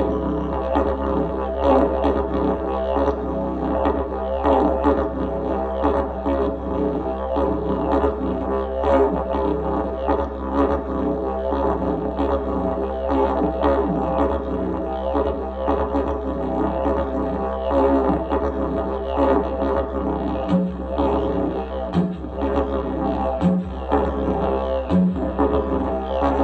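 Didgeridoo playing a continuous low drone with a rhythmic pulsing pattern. Near the end the drone is broken four times, about a second and a half apart, by short higher toots.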